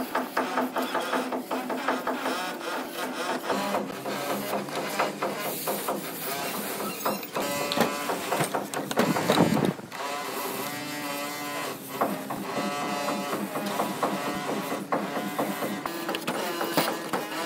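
Repeated scraping and rubbing on cement plaster, with a louder knock about halfway through.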